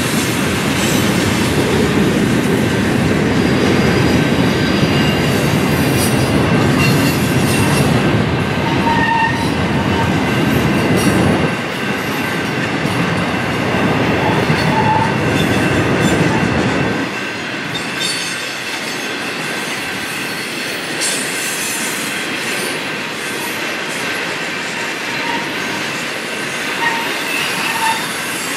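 Freight train of empty intermodal flatcars rolling past on a curve: a steady rumble and clatter of wheels on rail, which drops to a lighter running noise about 17 seconds in. Faint high squeals from the wheels come and go.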